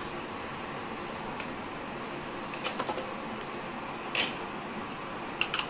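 Steel bowl and wire skimmer clinking against the rim of a steel pot as drained soaked rice is tipped in, a handful of scattered clinks, the loudest near the end, over a steady background hiss.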